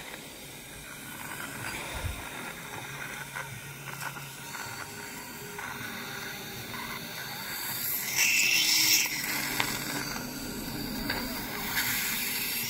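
Dental saliva ejector sucking steadily in the patient's mouth, with two louder bursts of hiss, about eight seconds in and again near the end.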